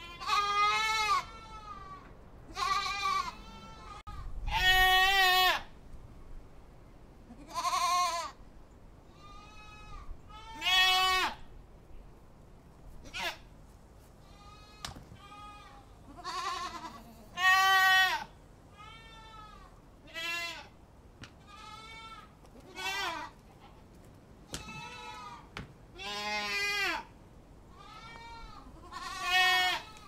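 Goats bleating over and over, a call every second or two, each a wavering call of about half a second to a second; some calls are loud and others fainter.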